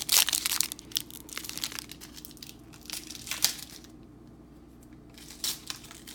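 Foil wrapper of a trading card pack crinkling and tearing as it is worked open by hand, in irregular bursts with a short lull about four seconds in; the pack is proving hard to open.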